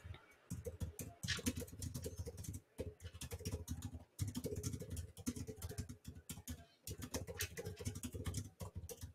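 Typing on a computer keyboard: a quick run of key clicks broken by a few short pauses.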